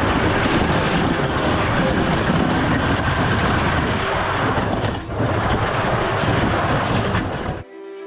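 A loud, steady rumbling roar, like a train running on track, that starts abruptly and cuts off suddenly, with a brief dip about five seconds in.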